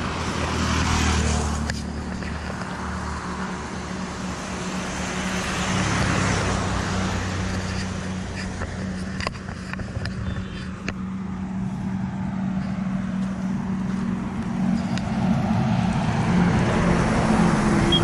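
Road traffic passing on a wet highway: tyre and engine noise swelling and fading several times over a steady low engine hum.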